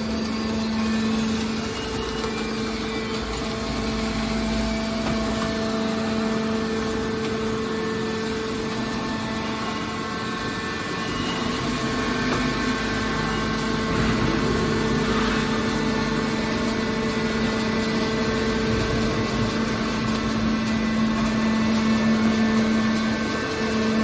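Hydraulic car baler running: a steady machine hum from its power unit, holding one pitch over a rumble of mechanical noise.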